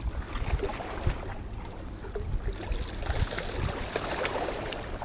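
A hooked fish thrashing and splashing at the surface against rocks, with water lapping, over a steady low rumble. The splashing is densest in the second half.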